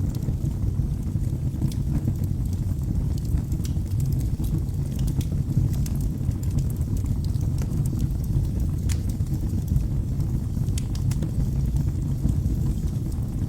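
Wood fire burning in a fireplace: a steady low rumble of flames with many sharp, irregular crackles and pops.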